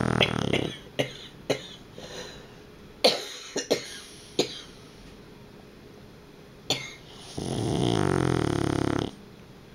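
Dog snoring: a long, rattling snore ends just under a second in, then several short sharp snorts, then another long snore comes in about two seconds before the end.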